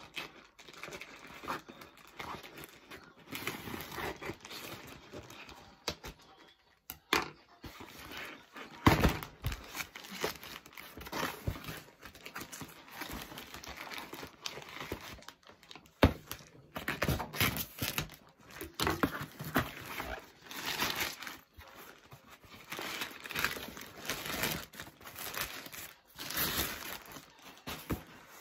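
Plastic mailer bag being torn open and handled: irregular crinkling and tearing, with a few sharp snaps.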